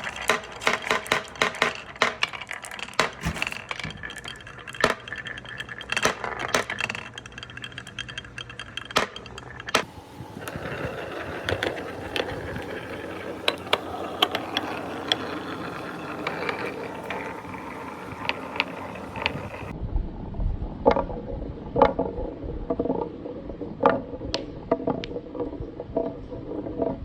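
Balls rolling and clattering down a marble run track. Rapid clicks and knocks come first, then about ten seconds of steady rolling with occasional taps, and after a cut near the end more scattered knocks over a low rumble.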